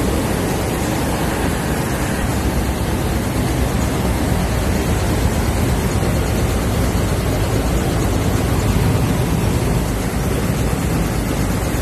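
Seed sieving and cleaning machine running, with a steady, loud noise of its motor and vibrating screen as seed flows across the deck.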